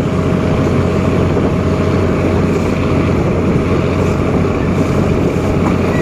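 Steady running noise of a moving passenger train heard from an open carriage window: rumble of the train underway with wind rushing over the microphone, over a steady low hum and a fainter higher whine.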